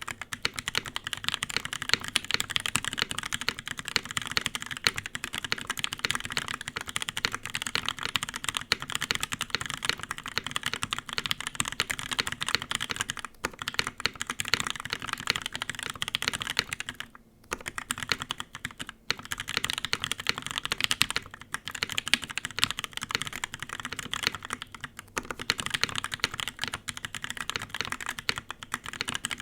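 Continuous fast typing on a Noxary 378 gasket-mounted mechanical keyboard with Tribosys Pewter switches, a 5 mm polycarbonate plate and CRP Tulip and GMK keycaps. Keystrokes come thick and steady, with two brief pauses a little past halfway.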